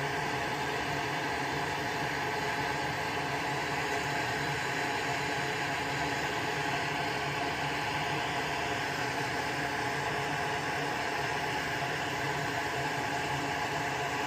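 A small electric fan running steadily: an even whir with a hiss of moving air and a fixed hum, unchanging throughout.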